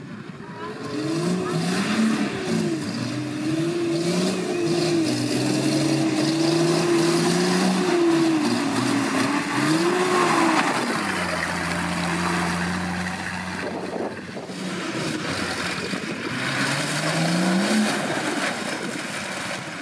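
Off-road 4x4's engine revving up and down over and over under load, holding steady for a few seconds partway through, then rising again near the end.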